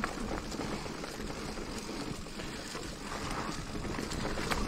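Wind buffeting the microphone over the low rumble of a mountain bike rolling along a rough trail, with a few faint clicks and knocks.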